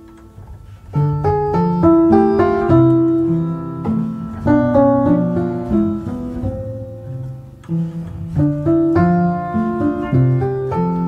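Background piano music, a flowing run of notes that briefly falls quiet and picks up again about a second in.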